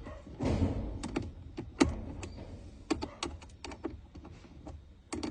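Irregular clicks and taps of tools and plastic parts as a car's air-conditioning blower fan is unscrewed and worked loose, with a short rustle about half a second in.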